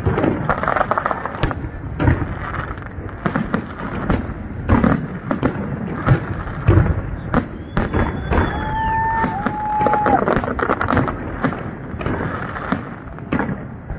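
Fireworks display: a rapid series of aerial shell bursts and bangs over continuous crackling. About halfway through, a brief high whistling tone is heard.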